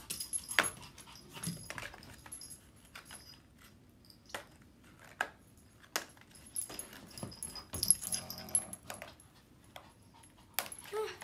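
Plastic packaging crinkling and clicking in the hands as a lip balm is worked out of it, with a small dog whimpering now and then.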